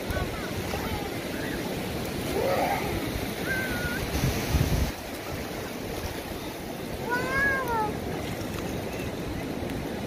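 Ocean surf washing on the beach, a steady rushing noise, with a few distant high calls rising and falling in pitch.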